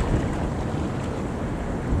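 Wind buffeting the microphone, with the steady wash of surf on a beach underneath.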